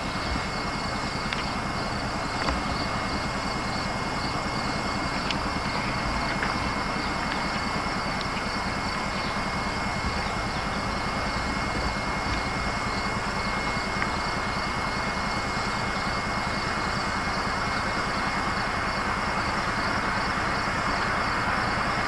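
Diesel locomotive engine running steadily at a distance, a CP MLW unit, getting slightly louder near the end.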